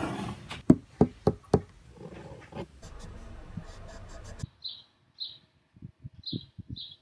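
A handful of sharp knocks and taps over a light hiss, like tools set down on a wooden desk. From about halfway, a bird chirps over and over, about two short high chirps a second, with a few soft low thumps beneath.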